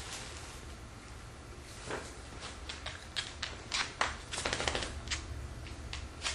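Scottish terriers' claws clicking and skittering irregularly on a hardwood floor as the dogs scramble about, thickest toward the middle. Before that there is softer rustling of the gift bag and paper.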